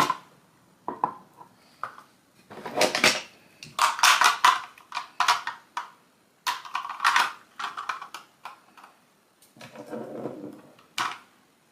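Hard household items clattering and clicking as they are handled and set down, in a string of short bursts with brief pauses between.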